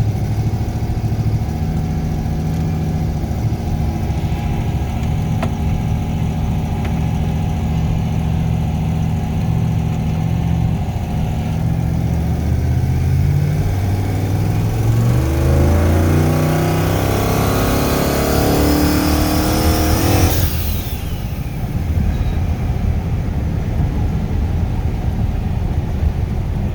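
LS V8 in a Ford Ranger with three rear-mounted turbochargers, accelerating: the engine note rises in steps from about twelve seconds in while a high turbo whine climbs with it. Both cut off suddenly about twenty seconds in as the throttle closes, and the engine settles back to steady running.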